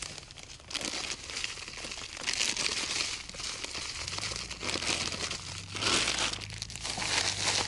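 Plastic packet of dry groundbait crinkling in the hands as it is opened and emptied into a bait bucket, in irregular bursts of rustling that are loudest about two and a half seconds in and again near six seconds.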